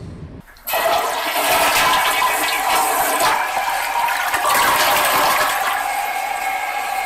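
Toilet flushing: a steady rush of water that starts about a second in and cuts off suddenly at the end.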